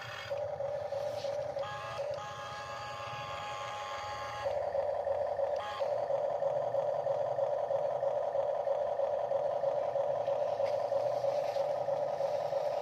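Huina radio-controlled toy excavator's small electric motors whining steadily as the boom and arm move. A second, higher whine joins from about 2 seconds in and stops about 4.5 seconds in, after which the main whine is louder.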